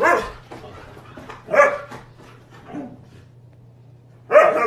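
A husky giving four short barks over about four seconds; the third is fainter than the others.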